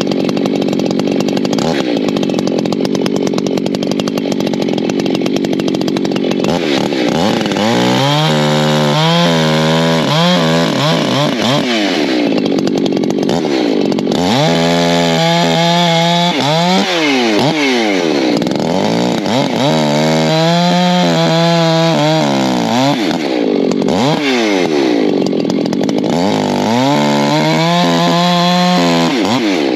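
Echo two-stroke chainsaw bucking oak logs into firewood rounds: steady at full throttle at first, then its engine pitch repeatedly drops and climbs back up as it works through the cuts.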